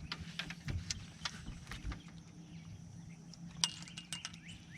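Scattered sharp clicks and light metallic clinks of fishing tackle while a hooked catfish is being fought, with a brief cluster of clicks a little past halfway, over a low steady hum.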